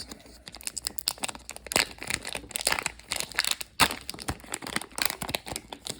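Trading-card booster pack wrapper crinkling and tearing as it is ripped open by hand, a dense run of irregular crackles.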